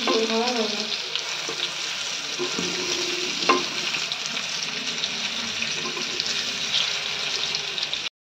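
Egg patties shallow-frying in hot mustard oil in a kadai: a steady sizzle, with a spatula scraping and tapping against the pan as they are turned. The clearest tap comes about three and a half seconds in, and the sound cuts off abruptly near the end.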